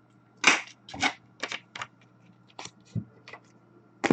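Trading cards and their packaging being handled: a quick run of about ten short snaps and rustles.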